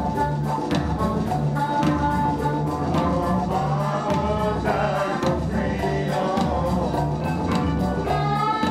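Live band playing with a male lead vocal over bass and drums, with a steady beat ticking in the cymbals.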